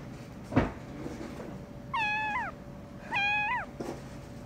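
A kitten meows twice, each meow about half a second long, about a second apart. A single sharp knock comes shortly before them and is the loudest sound.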